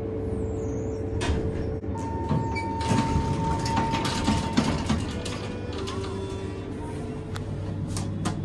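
Schindler HXPress hydraulic elevator car arriving at a floor: its doors slide open about two seconds in, with a steady electronic tone lasting nearly three seconds, over a constant low hum. A brief lower beep and a few clicks follow.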